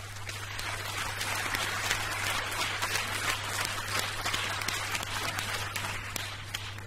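Audience applause reproduced from a vinyl LP, swelling over the first two seconds or so and dying away, with record crackle and a steady low hum underneath.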